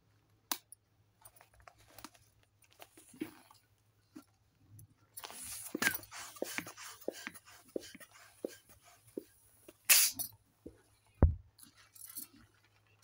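Latex balloons being handled and tied: rubber rubbing with small squeaks and clicks. There are short hisses of air, the loudest about ten seconds in, and a low thump soon after.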